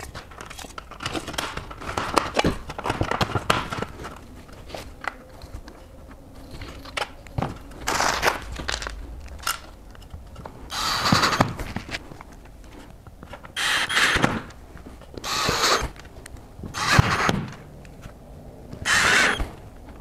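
Light clicks and knocks as aluminium frame pieces are handled and fitted together, then a cordless drill-driver driving screws through the aluminium frame into an OSB board in about six short bursts.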